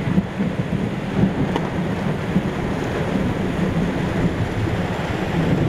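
Thunderstorm downpour with strong wind gusts: a steady, loud rush of heavy rain over a low rumble, with a few sharp ticks of drops.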